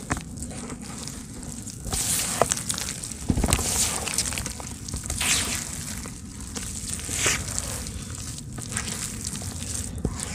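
Hands squeezing and crumbling soft, wet red dirt in a basin of muddy water. The wet crumbling swells in louder surges about every two seconds.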